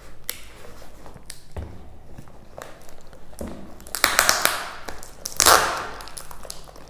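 Plastic courier packaging being torn open by hand: crinkling and rustling, with two louder bursts of tearing about four and five and a half seconds in.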